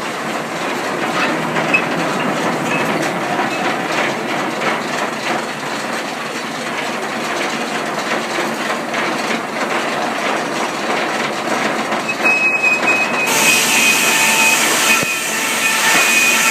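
Sawmill machinery running with a dense, steady clatter. About twelve seconds in, a high whine sets in, and a second later a brighter hiss joins as a saw blade starts cutting wood.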